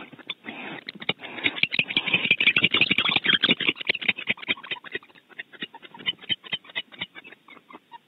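Barn owl moving about in its nest box: rapid, irregular scratching and scraping of talons and feathers against the box floor and walls, densest and loudest in the first half and thinning out toward the end.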